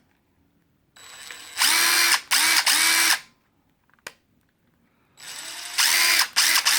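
DeWalt 20V Max 3/8-inch cordless impact wrench run twice with no load, a steady motor whine each time. Each run starts at low speed with a light trigger pull, then goes to full speed for about a second and a half, dipping briefly once or twice.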